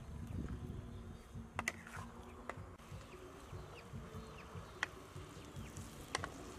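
A few sharp clicks, a wooden spatula knocking against a steel wok as greens are stir-fried, over a low steady hum.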